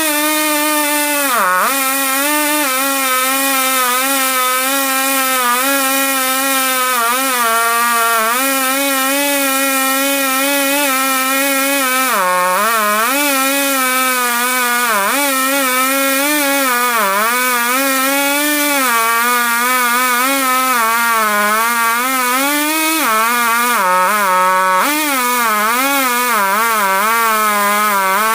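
Chinese clone two-stroke chainsaw in a homemade chainsaw mill running at high speed while ripping a log lengthwise into a board. The engine note wavers and dips sharply now and then as the chain bogs in the cut and recovers.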